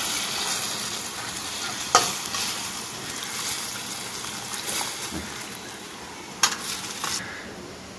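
Onion, tomato and coconut masala frying and sizzling in oil in a steel pan as boiled mutton and its stock are poured in, with a perforated steel ladle stirring and knocking against the pan twice. The high sizzling hiss drops away near the end as the liquid covers the masala.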